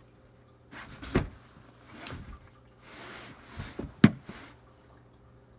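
Handling noise of an AirPods case and its packaging on a table: soft rustling broken by a few sharp clicks, the sharpest about four seconds in.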